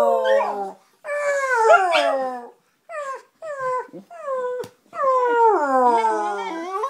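Dog howling: long calls that slide down in pitch, with a few short yips around the middle and another long howl starting about five seconds in.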